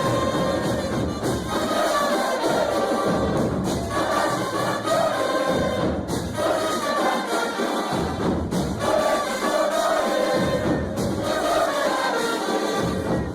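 Football stadium crowd singing a chant together in repeating phrases, with low drum beats coming and going.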